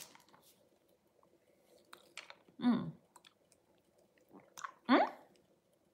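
Mouth sounds of someone eating a Winter Mixture boiled sweet: faint wet clicks and smacks of chewing and sucking. Two short hummed "mm" sounds come about two and a half and five seconds in, the first falling and the second rising in pitch.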